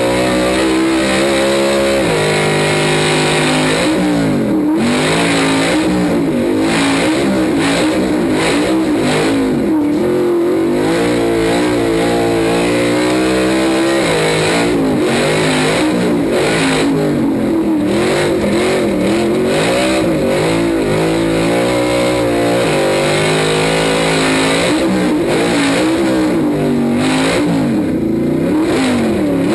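Off-road truck's engine revving up and down again and again under throttle, over a steady rushing noise of wind and dirt.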